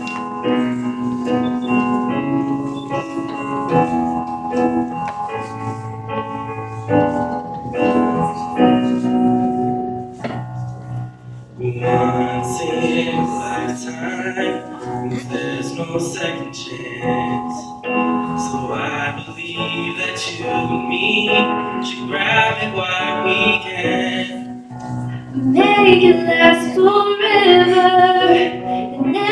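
Piano playing a chordal introduction; about twelve seconds in, a young woman's voice starts singing over it, louder near the end.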